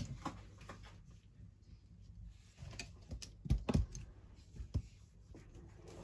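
Metal spoon clicking and tapping against a ceramic bowl of thick homemade hair conditioner: a few scattered light clicks, bunched just after halfway, with a couple of duller knocks among them.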